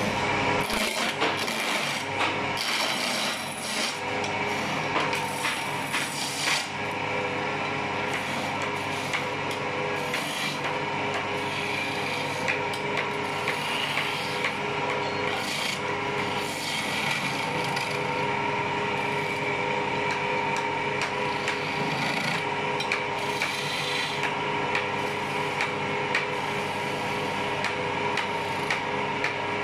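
Wood lathe spinning a wooden sofa-leg blank while a hand-held turning chisel cuts into it: a continuous scraping of steel on the turning wood, over the steady tones of the running lathe.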